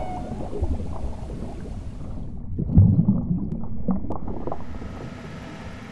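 Underwater sound effect: a low rumbling swell with a louder surge about three seconds in.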